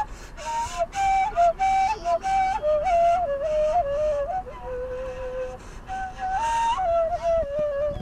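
Background music: a solo flute playing a slow melody of held notes and short stepping runs.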